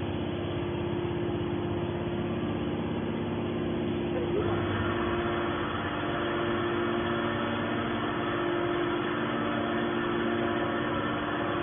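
Hydraulic scrap metal baler running with a steady machine hum. About four seconds in, its sound fills out and grows a little louder.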